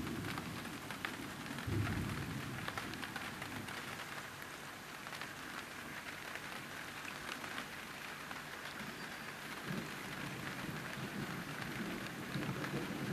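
Rain pattering steadily on calm water, many fine drops, with low rumbles of distant thunder swelling about two seconds in and again near the end.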